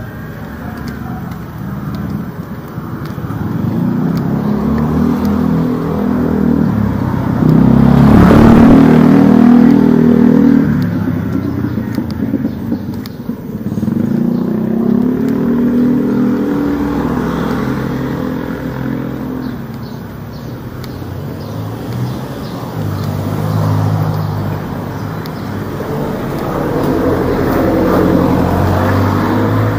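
Street traffic: several motor vehicles passing close by one after another, each engine sound swelling and fading, the loudest pass about eight seconds in.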